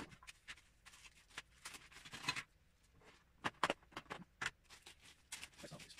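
Hands sorting LEGO pieces among plastic bags and a small clear plastic tub on a tabletop: irregular light clicks, taps and short rustles of plastic.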